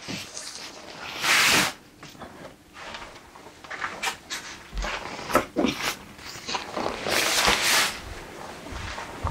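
Rustling and crinkling of a Snugpak Special Forces bivvi bag's waterproof fabric as it is unrolled and spread out by hand on a wooden table, in irregular bursts, loudest about a second and a half in and again around seven seconds in.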